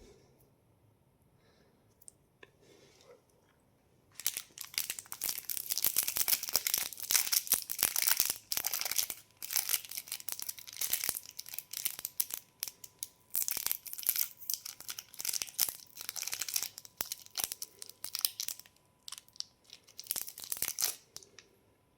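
Candy packaging being torn open and crinkled by hand: dense crackling that starts about four seconds in and goes on in irregular spurts until near the end.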